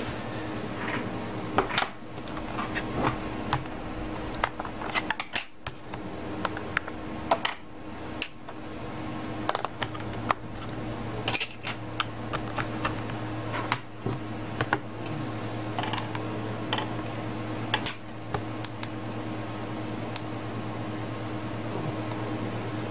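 Irregular plastic clicks and taps from handling a phone-tablet while its lithium battery is fitted in the battery bay and the unit is closed up. A steady low hum runs underneath.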